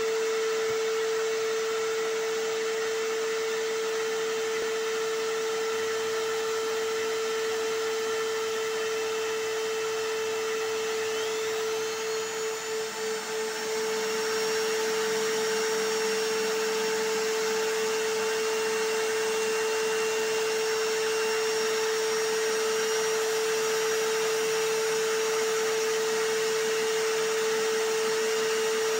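Vacuum cleaner running steadily, mixed with a hammer drill, as one continuous whooshing noise with a constant whine. The level flutters briefly about twelve seconds in, then the sound settles back to steady.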